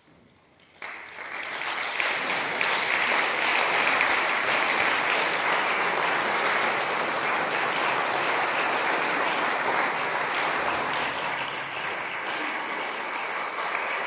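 Audience applauding at the end of a performance: clapping breaks out about a second in from near silence, builds quickly and then holds steady.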